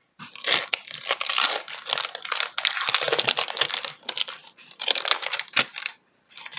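Plastic chocolate-bar wrapper crinkling and tearing as it is peeled back by hand, in uneven bursts with a brief pause near the end.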